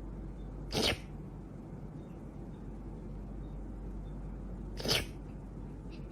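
A cat sneezing twice, two short sharp sneezes about four seconds apart.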